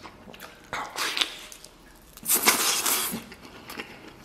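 A person gnawing and slurping sticky, gelatinous meat off a braised cow hoof. There are two noisy slurps, a short one about a second in and a longer, louder one just past two seconds, with wet chewing clicks between them.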